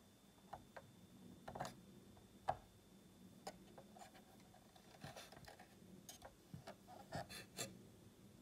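Faint, irregular light clicks and taps from handling a 1:18 diecast model car, over a quiet room background.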